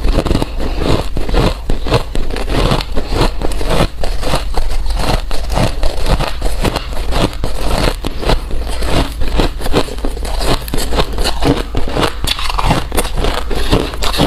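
Ice being bitten and chewed close up: a continuous run of loud, irregular crunches, several a second.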